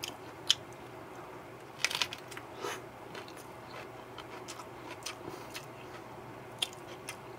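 Biting into and chewing a lettuce-leaf wrap filled with rice, pasta and greens: scattered crisp crunches of the lettuce, the loudest cluster about two seconds in.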